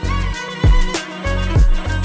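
Background music with a deep, steady beat about once a second under held melodic tones.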